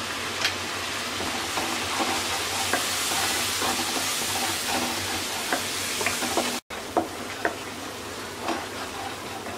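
Onion and ground-spice masala sizzling in hot oil in a nonstick pan, stirred with a wooden spatula that scrapes and taps lightly against the pan. The sound cuts out for an instant about two-thirds of the way through.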